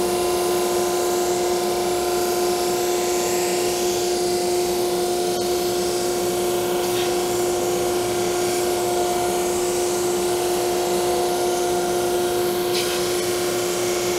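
Single-ended drum sander running with a steady hum and an even hiss.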